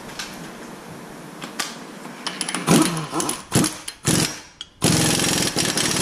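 Impact gun spinning on and tightening the front axle nut on a car's hub: a few short bursts of rattling, then a longer run of rapid hammering from about five seconds in as the nut tightens down.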